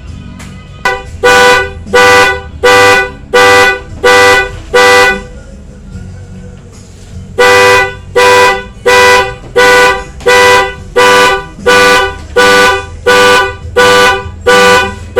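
Honda Vario scooter horn wired to work as an alarm, sounding in loud, evenly spaced beeps of one pitch, about one and a half a second. The beeps stop for about two seconds partway through, then start again at the same pace.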